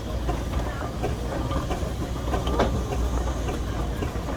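Steam engines in a parade rolling past, with a steady low rumble and scattered irregular clanks and knocks. A sharper knock comes about two and a half seconds in.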